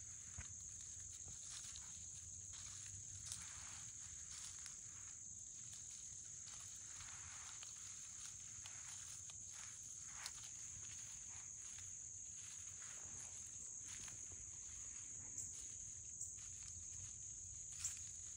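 An opossum shuffling through dry leaf litter: faint, irregular rustles and a few light twig ticks, over a steady high-pitched insect drone.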